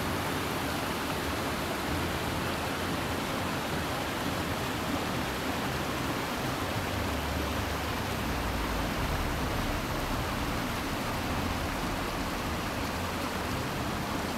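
Shallow mountain stream running over rocks and gravel, a steady rush of water.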